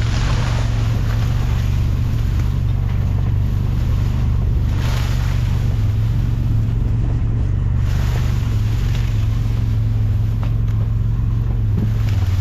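Can-Am side-by-side's engine running steadily at a low drone while driving along a brushy trail, with a few swells of rushing noise as it goes.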